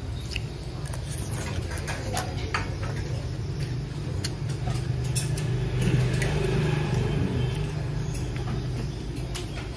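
A steady low motor rumble, with scattered light clicks of a spoon and chopsticks against a plate.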